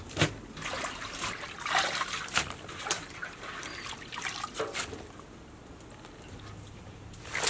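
Water splashing and dripping as handfuls of wet water spinach are lifted out of a metal basin of water into a plastic colander. Irregular small splashes and patters come through the first few seconds, then it goes quieter to a light drip.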